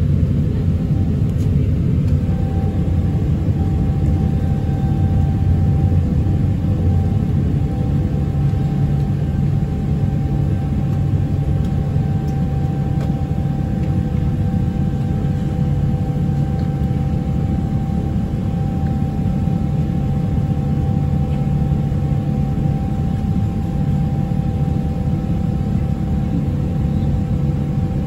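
Cabin noise of a Boeing 777-300ER climbing after takeoff: the steady rumble of its GE90 engines and the airflow, with a steady whine of several tones over it.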